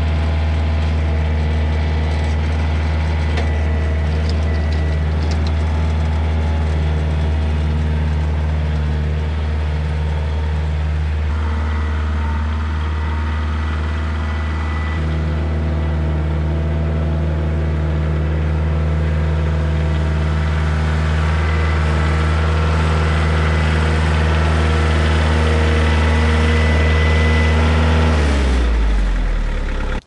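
Compact tractor's diesel engine running steadily, then winding down and stopping about a second before the end.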